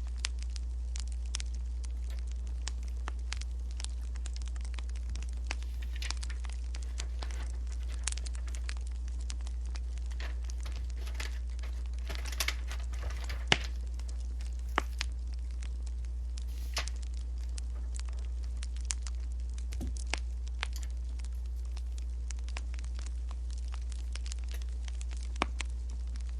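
Wood fire crackling, with irregular sharp pops and snaps over a steady low hum. A denser rustle comes about halfway through.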